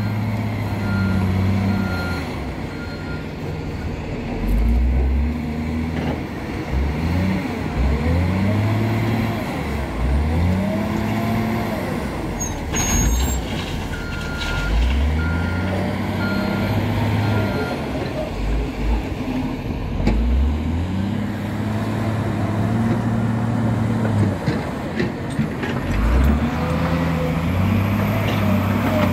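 CAT 966H wheel loader's diesel engine revving up and falling back again and again as it works, with a reversing alarm beeping in short runs. A short hiss of air comes about thirteen seconds in.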